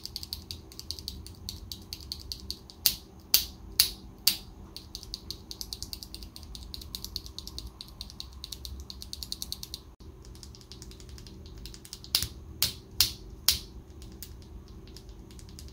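Mechanical keyboard switches, AKKO CS Jelly linears, clacking under rapid keystrokes. Two clusters of about four louder, sharper strokes stand out, one a few seconds in and one near the end.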